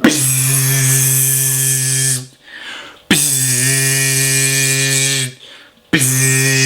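Three long buzzing horn-like blasts on one low note, each about two seconds long and starting sharply, with the pitch settling as each blast begins.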